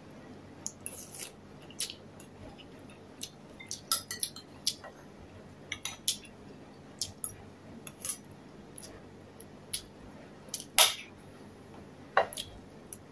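A metal spoon clinking and scraping against a ceramic bowl in short, irregular clicks. The loudest click comes about eleven seconds in.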